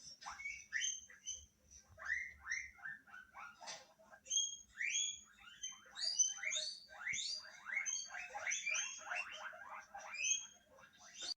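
Guinea pigs wheeking: a long run of short squeals, each sliding down in pitch, many overlapping, with a few brief pauses.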